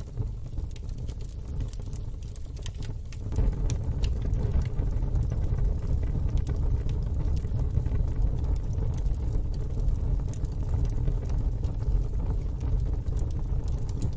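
Wood fire in a fire pit crackling, with scattered sharp pops over a steady low rumble that gets louder about three seconds in.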